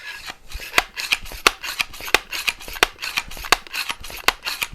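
Excellent C1 multi-pump air rifle being pumped: a steady stroke about every 0.7 s, each ending in a sharp click, with rasping, rubbing noise between the clicks.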